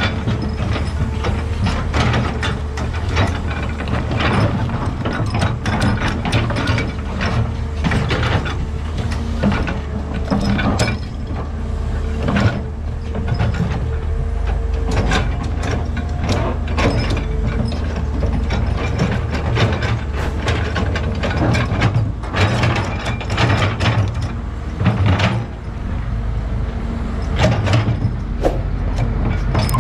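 Komatsu PC210LC crawler excavator's diesel engine running steadily, with frequent irregular clanks and knocks of the working machine.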